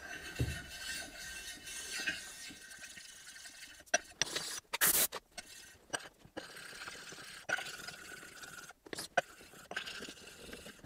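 Metal parts being handled on a workbench: scraping with a few sharp clinks and knocks, the loudest a short cluster about four to five seconds in.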